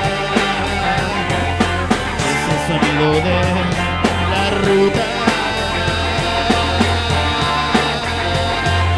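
Rock music in an instrumental passage with no singing: a band playing over a steady, evenly spaced drum beat.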